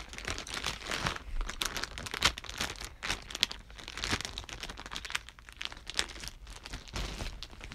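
Plastic packaging crinkling and crackling in irregular bursts as a squishy toy is handled and unwrapped.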